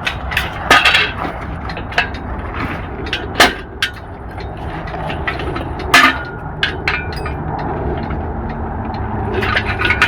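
Irregular sharp metallic clanks and knocks of tools and parts being handled during work on an engine, one ringing briefly about six seconds in, over a steady low rumble.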